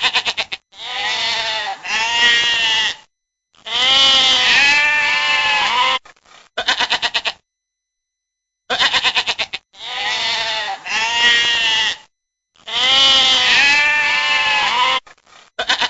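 Sheep bleating: short quavering bleats with a fast pulse and longer wavering baa calls, several in a row. After about a second of silence the same run of bleats plays again.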